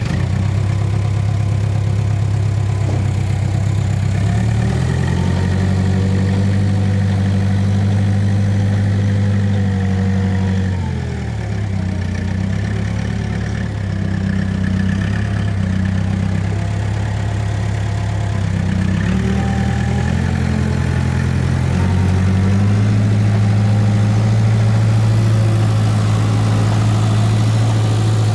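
Case 580K backhoe loader's diesel engine running, its speed rising and falling as the machine works: it revs up about four seconds in, drops back around eleven seconds, and climbs again in stages from about nineteen seconds on.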